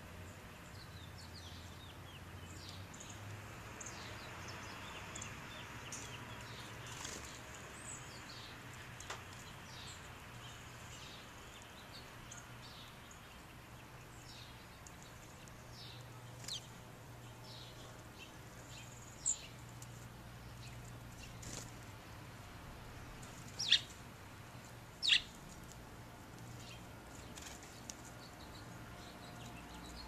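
House sparrows giving short, high chirps scattered throughout, with two louder, sharper chirps about three quarters of the way through, over a faint steady low hum.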